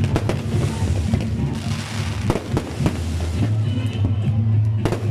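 Fireworks going off: several sharp bangs at irregular intervals, the strongest near the end, over a steady low rumble.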